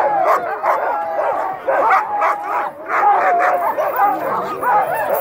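A pack of harnessed sled dogs barking and yipping together, many overlapping high wavering whines and howl-like cries with sharp barks mixed in, without a break. It is the excited clamour of a sled team hitched and waiting to run.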